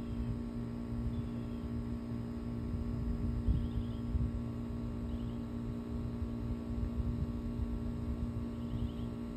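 Steady low electrical-type hum over a rumbling undertone, with a few faint, short high chirps now and then.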